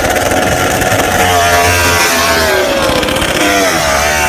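Racing motorcycle engine running loud and high, its pitch sagging and then climbing again as it revs.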